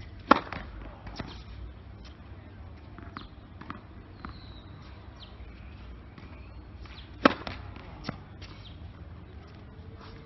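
Tennis racket striking the ball on a serve, twice, about seven seconds apart, each a sharp loud crack with a short ring. Fainter knocks come between the two serves.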